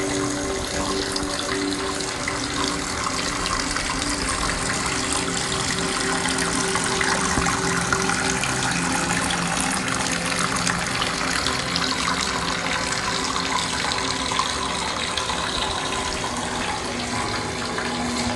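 Waterfall-style bathroom sink faucet running at a steady flow, its sheet of water splashing into the basin.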